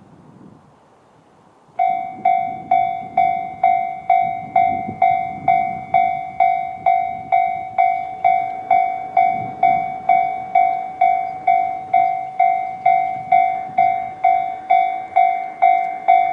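Japanese railway level-crossing alarm sounding the electronic JR standard tone: it starts about two seconds in and dings at about two strikes a second, each stroke a clear ringing tone that dies away quickly, and stops near the end.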